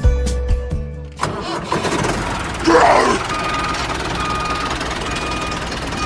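Music stops about a second in and a vehicle engine runs steadily, swelling once near the middle. From about halfway a short electronic beep repeats roughly once a second.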